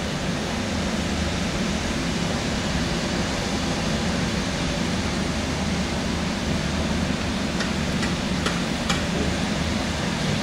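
Steady machine noise with a constant low hum, with a few sharp clicks near the end.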